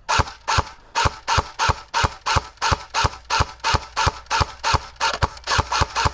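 Full-electric airsoft RPK firing a steady string of rapid shots, about three to four a second, each a sharp clack.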